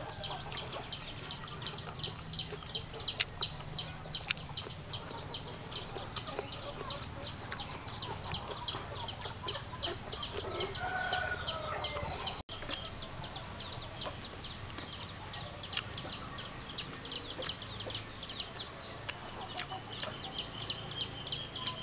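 Chicks peeping without a break: a rapid series of short, high, falling notes, several a second, pausing briefly near the end.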